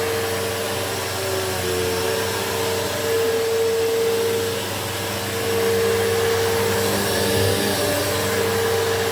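Bissell PowerForce Bagless upright vacuum cleaner running steadily: an even rushing motor noise with a steady high whine, the loudness dipping and swelling slightly.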